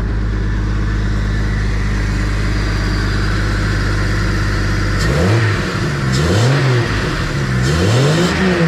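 Jeep XJ's 4.0-litre inline-six idling steadily, then revved up and down several times from about five seconds in. It runs clean, with no spitting back through the intake, after new correctly gapped spark plugs and a cap-and-rotor job.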